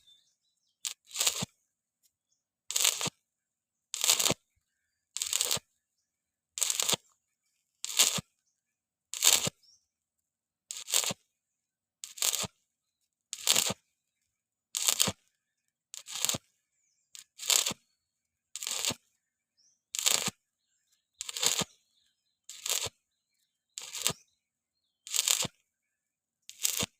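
Electric arc welding on thin-walled 1.6 mm square steel pipe, done in short pulses: the arc crackles for about half a second, cuts off, and strikes again roughly every 1.3 seconds, about twenty times. This on-off stitch technique keeps heat down in thin pipe.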